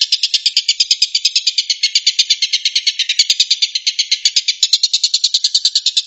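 Oriental dollarbird (tengkek buto) giving its rapid-fire 'tembakan' call: a continuous, high-pitched rattling trill of harsh notes, about nine a second, with no break.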